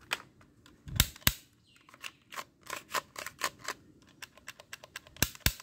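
Sharp plastic clicks and knocks from a black plastic toy gun being picked up and handled. A run of irregular clicks, with two louder knocks about a second in and a quick cluster near the end.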